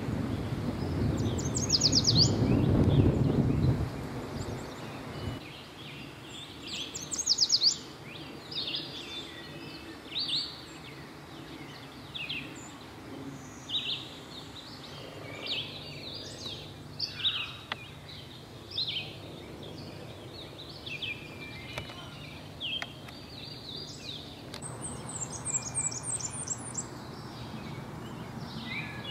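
Songbirds singing in spring woodland: short whistled and chirped phrases every second or two, with a few very high, fast trills. A low rumbling noise sits under the first few seconds.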